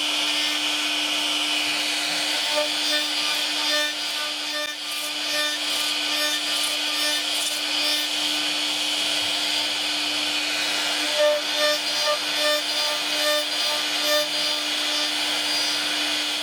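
CNC router cutting wood: a steady machine hum under a continuous rasping cutting noise, with short repeating tones above it.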